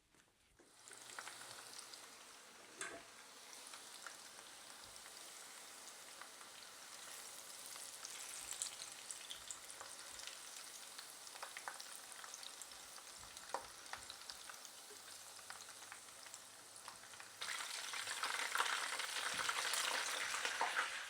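Food frying in hot oil in a pan: a steady sizzle with scattered crackles, starting about a second in and getting louder near the end.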